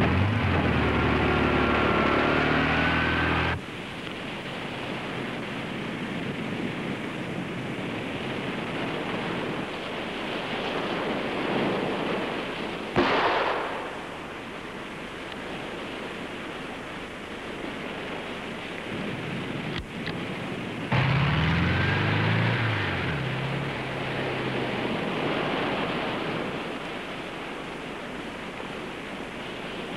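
Surf washing and breaking in a steady rush. A dune buggy's engine runs at the start and stops abruptly, then comes back briefly about two-thirds through. A single sudden loud crash a little before halfway stands out above the surf.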